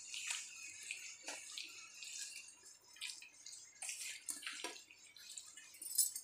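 Wet, squishing sounds of a hand working raw chicken pieces into a yogurt marinade in a steel bowl, in irregular soft strokes with a few faint clicks.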